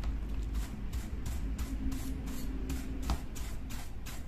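Light rubbing and clicking of a small circuit board and its wires being handled and lifted inside an amplifier's wooden case, with a sharper click about three seconds in, over a low steady hum.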